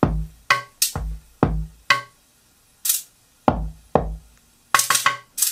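A programmed drum-machine beat playing: punchy kick-drum hits with short pitched tones, unevenly spaced, and a few crisp hi-hat or cymbal hits among them.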